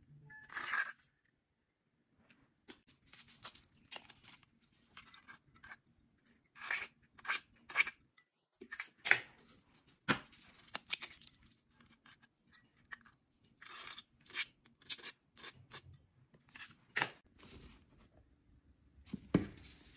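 Eggs being cracked and separated over a stainless steel mixing bowl: a string of short, irregular cracks, crunches and taps of eggshell. Near the end, flour is sifted through a mesh sieve.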